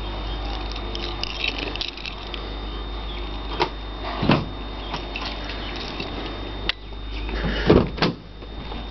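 A 1997 Holden VS Commodore's car door being handled and opened: a few knocks and clicks, the loudest just before the end, over a steady low rumble.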